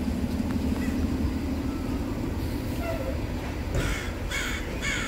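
Steady low rumble of idling vehicle engines in the street, with three short harsh calls about half a second apart near the end.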